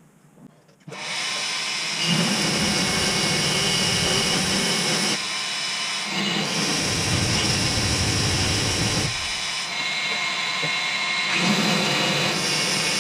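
Power grinder starting about a second in and hollow-grinding into the jerry can's mount, deepening the cut so it fits thicker sissy bars; the sound shifts in character a few times as the tool is worked.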